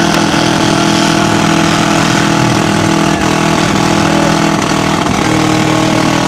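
Four-cylinder demolition-derby car engines running together, a loud, steady engine din that holds nearly the same pitch throughout.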